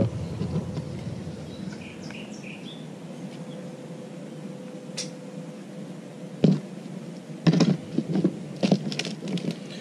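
Handling of fishing tackle: a few sharp clicks and knocks in the second half as line spools are set down on a plastic tackle box, over a low, even background hiss, with faint bird chirps about two seconds in.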